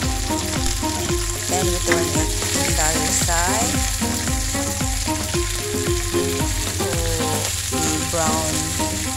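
Chicken legs sizzling as they fry in hot oil in a stainless steel pan, with metal tongs turning them over. The sizzle is steady and hissy.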